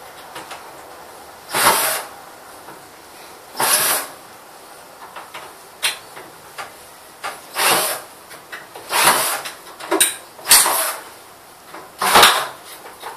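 Cordless drill/driver running in short bursts to drive screws into a plastic headlamp housing, about six runs of well under a second each, with small clicks and knocks of the screws and housing between them.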